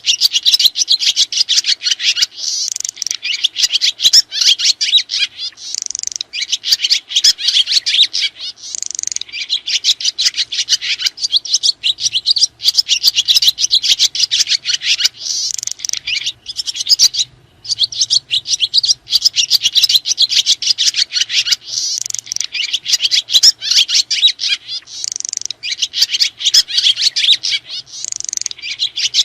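Swiftlets (sriti) chirping in a dense, continuous stream of rapid high chirps, broken only briefly about 17 seconds in.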